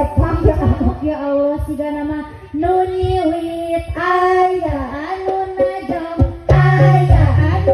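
Music with a high singing voice holding long, gliding notes. The accompaniment grows louder with a steady bass about six and a half seconds in.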